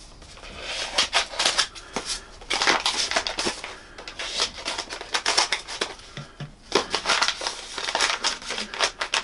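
Scissors snipping and cutting through the stiff kraft-paper wrapping of a parcel, with the paper crackling and rustling in irregular crisp bursts as it is handled and pulled open.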